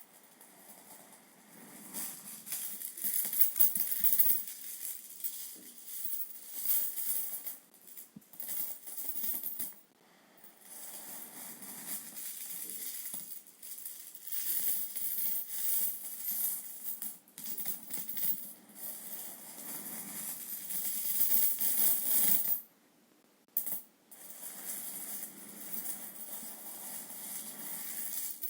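Euro coins tumbling and sliding over one another by hand, a dense, continuous metallic jingling and clinking. It breaks off briefly twice, about ten seconds in and again about 23 seconds in.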